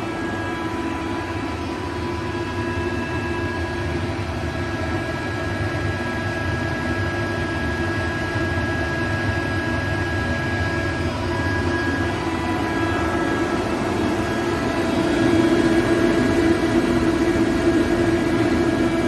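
ALUP SCK 21-08 15 kW rotary screw air compressor running steadily while it pumps up an air receiver toward 8 bar. It is a steady hum with a few high whining tones, getting a little louder about fifteen seconds in.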